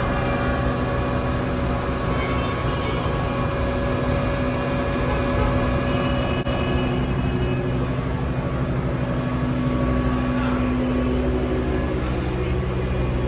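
Electric tram heard from on board: a steady low rumble with several constant humming tones, one of which grows stronger near the end.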